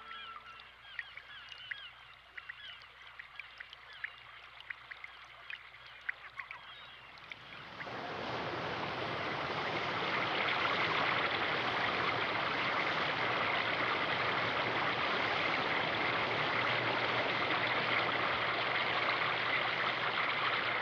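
Birds calling in short, quick chirps for the first seven seconds or so. About eight seconds in, the steady rush of a waterfall and stream pouring over rocks swells up and continues.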